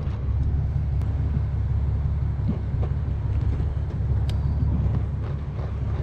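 Steady low rumble of a motorcycle on the move, with a few faint ticks over it.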